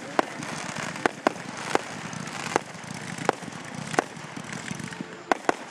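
Fireworks going off in scattered sharp bangs, about nine at irregular intervals, over a steady background hiss.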